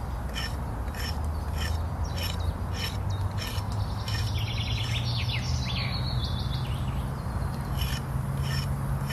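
Hatchet blade scraping and shaving bark off a green stick in short repeated strokes, about two a second, with a quicker run of scraping midway. A low hum slowly rising in pitch runs underneath.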